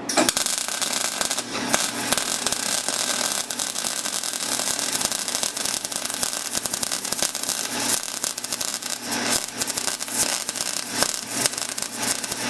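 MIG welder arc crackling steadily as a bead is run around a steel steering-shaft spline joint. It stops near the end.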